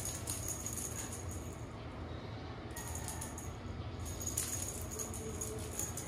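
Small jingling rattle of a cat teaser toy being shaken in irregular bursts. It stops about two seconds in and starts again about four seconds in.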